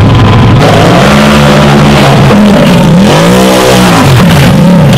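Off-road buggy engine revving hard, its pitch swinging up and down, with one long climb to a peak and drop about three to four seconds in, then quick throttle blips.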